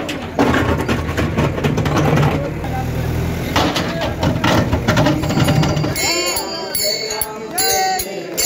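A backhoe loader's engine running, a steady low drone with sharp clicks over it, under crowd noise. About six seconds in the drone drops away and a crowd's voices sing and call out.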